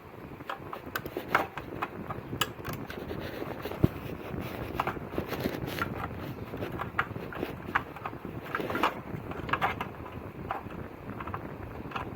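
Irregular small clicks, taps and scrapes of hand tools working on a receiver's power transistors and heatsink, over a steady rustling hiss of handling noise.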